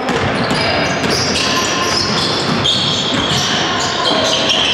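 Basketball being played: the ball bouncing on the court amid repeated knocks, with short high squeaks at shifting pitches, typical of sneakers on a hardwood court floor.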